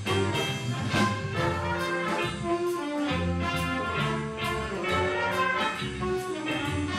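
Background music played by a brass band, trumpets and trombones, over a steady beat.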